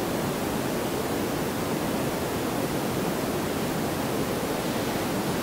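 Steady, even static hiss that does not change.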